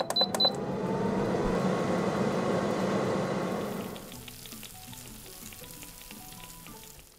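Glass-bowl halogen air fryer starting up: a few short control-panel beeps, then its fan motor spinning up with a rising whine and blowing air steadily. About four seconds in this gives way to soft background music.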